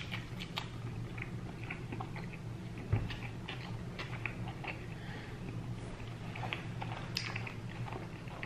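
Close-miked chewing of a big mouthful of burrito: a run of small wet mouth clicks and smacks throughout, over a steady low hum. One dull thump about three seconds in.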